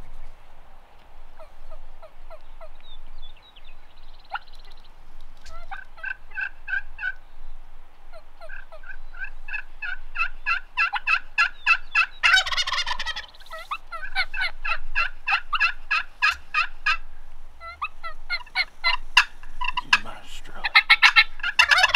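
Merriam's wild turkeys calling: runs of rapid, sharp yelps and clucks, with a louder gobble about twelve seconds in.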